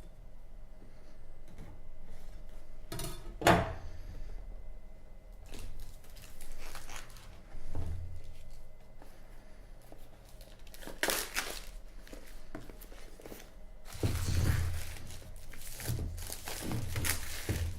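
Handling of a retail iPad box and its plastic wrap: scattered knocks and scrapes on cardboard, with tearing and crinkling plastic. There is one sharp knock about three and a half seconds in and a longer spell of rustling near the end.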